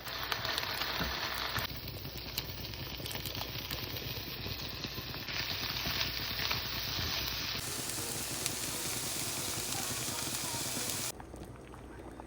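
Food frying in a hot pan, a steady sizzle with scattered small clicks; the sizzle changes abruptly in loudness a few times and drops away near the end.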